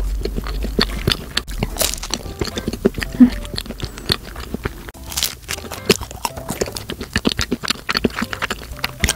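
A person chewing a mouthful of hojicha cream salt bread: soft crackling of the crust and wet mouth clicks, many small irregular ticks.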